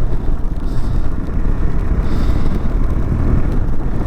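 Motorcycle running at road speed, a steady rumble mixed with wind rushing over the microphone.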